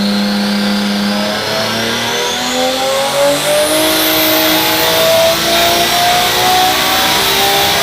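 Turbocharged car engine accelerating, its pitch climbing steadily over several seconds, with a thin high turbo whistle rising above it during the first few seconds.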